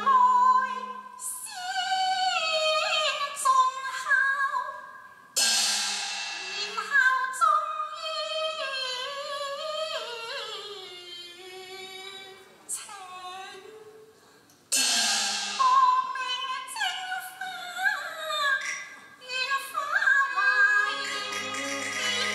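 A woman singing Cantonese opera (yueqü) in long, sliding, ornamented phrases, with new phrases starting sharply about five and fifteen seconds in. Instrumental accompaniment drops out after the opening second and comes back in near the end.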